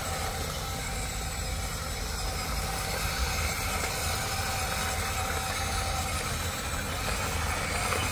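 Huina remote-control excavator running, a steady mechanical hum from its motors as the boom and bucket are worked.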